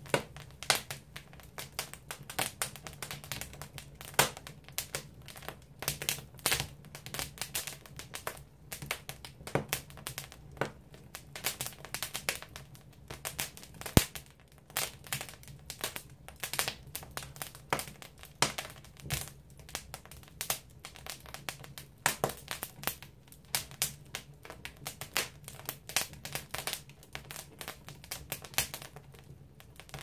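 Firewood crackling and popping as it burns in a traditional Korean agungi firebox: irregular sharp snaps of varying loudness, one much louder pop about halfway through, over a low steady hum.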